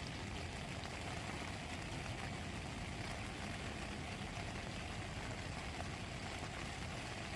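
Steady rain falling, an even hiss that holds without change and seems to be getting heavier.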